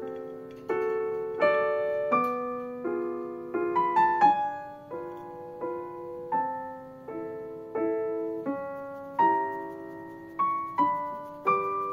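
Background piano music: single notes and chords struck about once or twice a second, each one dying away before the next.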